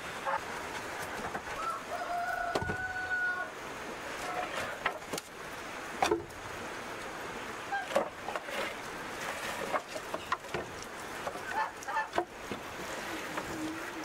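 Chickens clucking, with a rooster crowing once about two seconds in, amid scattered sharp knocks.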